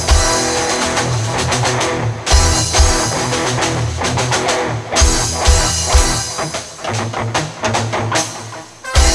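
Band music with no singing: guitar over bass and drum kit, with heavy kick-drum and bass hits.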